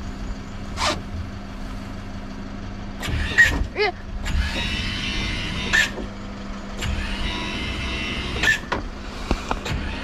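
Motor of a powered work lift running with a steady hum. Scattered clicks and knocks run over it, and two longer stretches of hiss come in the middle and near the end.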